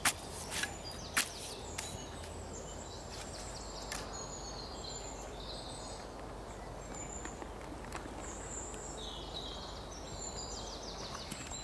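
A steel spade stabbing into garden soil, about four strikes in the first two seconds. Birds then chirp in the background over steady outdoor ambience.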